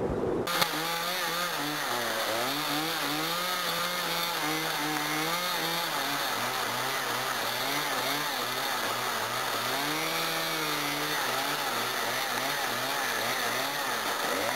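A brief rush of wind on the microphone, then a two-stroke chainsaw cutting tree branches. It runs steadily, its pitch repeatedly dipping and rising as it works through the wood.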